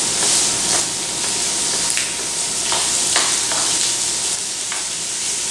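Crumbled chicken sausage sizzling in olive oil in a hot skillet, a steady frying hiss, with a utensil scraping and breaking the meat into small pieces every second or so as it browns.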